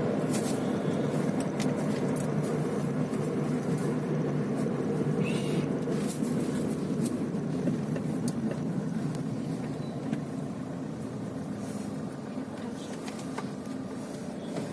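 Car road and engine noise heard from inside the cabin: a steady low rumble, easing slightly near the end, with scattered light clicks and ticks.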